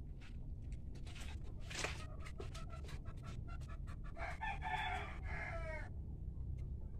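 A rooster crows once, about four seconds in, for nearly two seconds. Scattered small clicks and knocks run through the rest.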